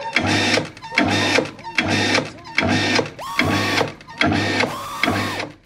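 Hitachi WM-P 350GX automatic water pump cutting in and out in short bursts, about one every three-quarters of a second, instead of running long and stopping. This rapid short-cycling is the fault the owner traces to the pump's nitrogen pressure tank having lost its air charge.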